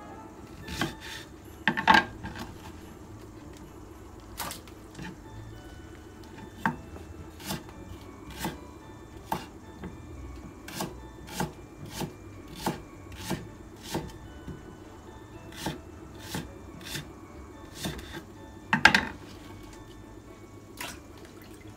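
Kitchen knife chopping on a wooden cutting board in a slow, steady rhythm, about one and a half strokes a second, with two louder clatters about two seconds in and near the end. Light background music plays underneath.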